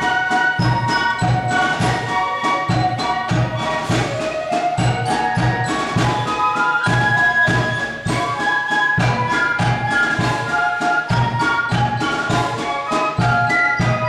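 A German Spielmannszug (fife-and-drum corps) playing: a massed section of transverse flutes carries the melody over a steady bass drum beat of about two strokes a second, with snare drums.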